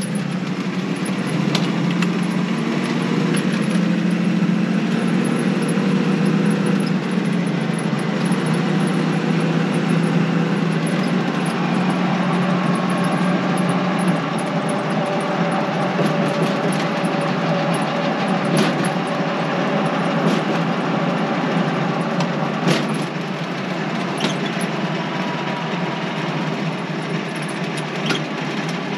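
1956 Chrysler Windsor's 354 Hemi V8 running under way, heard inside the cabin together with road noise. A steady drone that is heaviest for the first half and then eases off, with a few sharp clicks in the second half.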